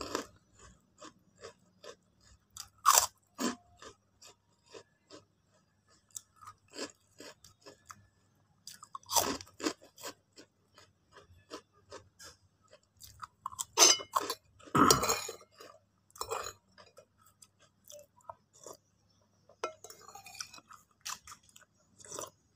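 Close-up crunching bites into a crisp krupuk cracker, with steady chewing crunches between them. The loudest bites come about 3, 9 and 14–15 seconds in.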